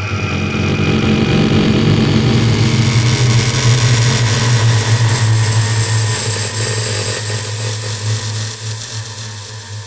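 Low, droning rumble with a rising wash of hiss, swelling to its loudest about four seconds in and then slowly fading: dark ambient horror-film score or sound design.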